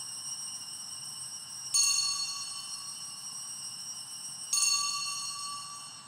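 Altar bell rung at the elevation of the consecrated host: two high, clear strikes about three seconds apart, each ringing on and slowly fading, with the ring of an earlier strike dying away at the start.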